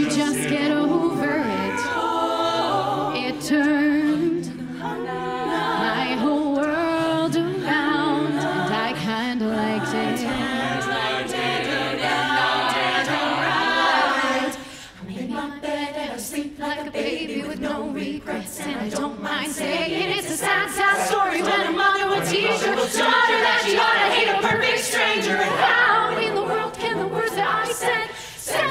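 Mixed-voice a cappella group singing in close harmony behind a female lead on a microphone, with no instruments. After a brief drop about halfway through, a crisp, fast ticking beat comes in under the voices.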